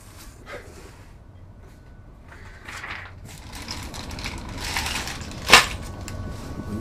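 Plastic wrapping crinkling and cardboard rustling as a boxed ceramic marine toilet and its bagged parts are unpacked, building up after a quiet start, with one sharp loud crackle about five and a half seconds in.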